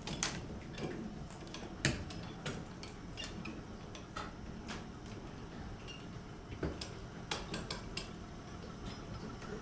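Irregular light clinks and knocks, hard objects striking, about one a second.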